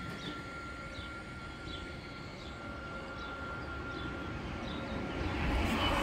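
Small electric minibus approaching and passing close by, its tyre and motor noise swelling to its loudest near the end. Earlier, short high chirps repeat about every second over a faint steady whine.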